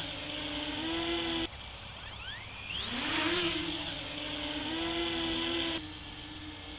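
Quadcopter drone's electric motors and propellers whining steadily, with a sharp rise in pitch about two to three seconds in as the motors speed up. The sound cuts off abruptly twice.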